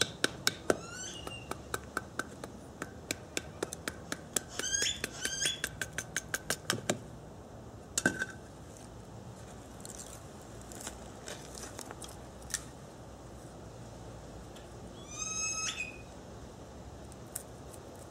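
A knife cutting a section off a bamboo pole: a quick run of sharp cracks and clicks for about seven seconds, then only a few scattered clicks. Short rising chirps come and go over it, the loudest near the end.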